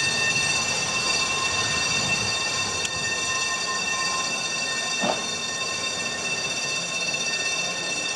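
Snaefell Mountain Railway electric tramcar rolling slowly round curved track, with a steady high-pitched squeal from the wheels on the curve.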